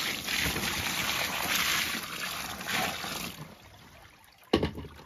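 Water poured over a grass carp lying in a carp mat, splashing steadily for about three and a half seconds before dying away. About a second before the end, one short sharp thump.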